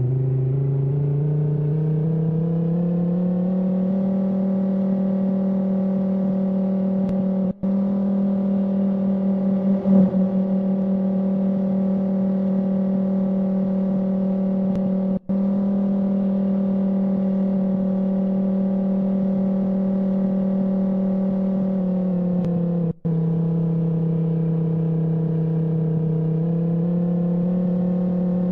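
Outdoor tornado warning siren winding up over the first few seconds to a steady tone, holding it, then sagging slightly in pitch and climbing again near the end. The sound cuts out for an instant three times.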